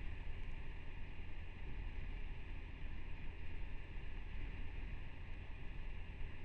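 Steady wind rush and road noise picked up by a helmet-mounted camera's microphone while riding a motorcycle, with no distinct engine note standing out.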